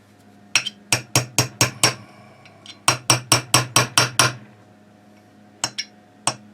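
A small hammer tapping a part into place in a rifle's action with quick, sharp, ringing metal taps. There are two runs of about seven taps each, roughly five a second, then two single taps near the end.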